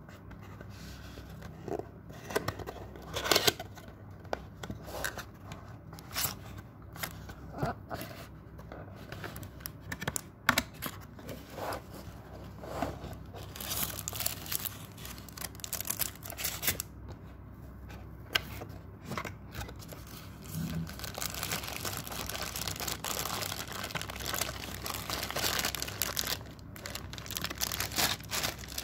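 Unboxing handling: a cardboard box's flaps being opened, with scattered sharp scrapes and clicks. From about twenty seconds in, plastic wrapping and tissue paper crinkle steadily.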